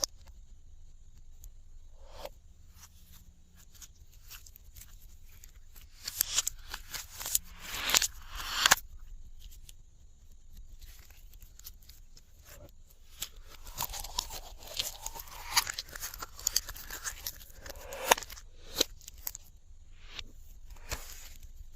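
Glossy slime being worked by hand, giving scattered sticky clicks and crackly pops, with two busier stretches of squishing.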